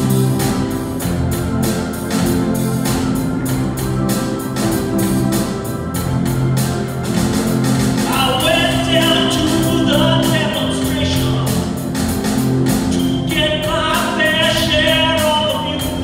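Church choir and live band with electric and bass guitars performing a song with a steady beat; the first half is instrumental, and the choir's voices come in about halfway through, pause briefly, and return near the end.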